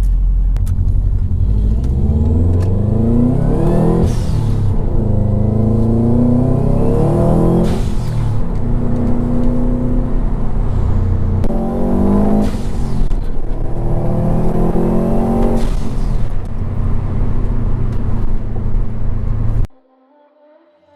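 Subaru WRX's turbocharged EJ255 flat-four engine revving up several times, each rise in pitch ending in a sudden drop, before cutting off near the end.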